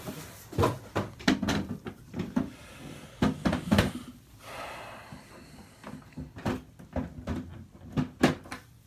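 Hard plastic Makita tool case being handled, with a series of sharp clicks and knocks of plastic on plastic and a brief scrape about halfway through.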